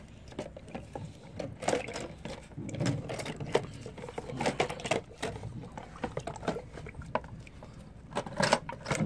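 Irregular light clicks and knocks from metal parts being handled in a metal parts-cleaning pan of gasoline.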